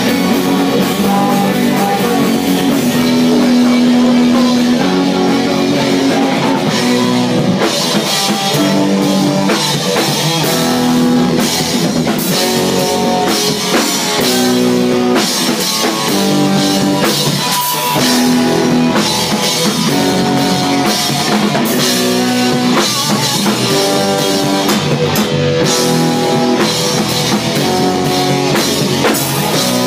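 A small rock band playing live, with electric bass, electric guitar and drums.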